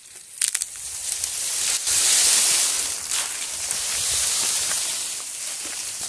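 Tucum palm leaves rustling and scraping in a long continuous hiss as they are pulled, swelling about two seconds in and easing off near the end.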